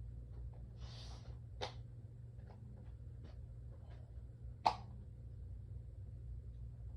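A person's quiet nose and breath sounds: a short sniff about a second in, a few faint clicks, and a sharp, very brief breath catch a little past the middle, over a faint steady low hum.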